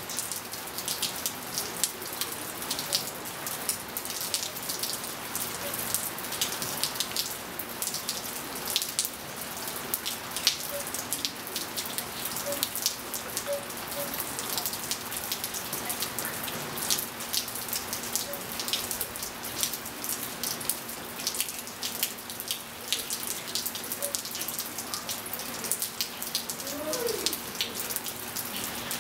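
Steady rain falling on a swimming pool and wet patio tiles, with many close individual drops ticking sharply. A faint steady hum sits underneath.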